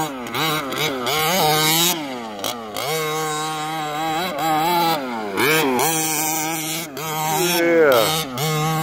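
HPI Baja 5B 1/5-scale buggy's small two-stroke gasoline engine revving up and down in quick throttle bursts as it is driven, holding a steady pitch for a couple of seconds mid-way and climbing again near the end.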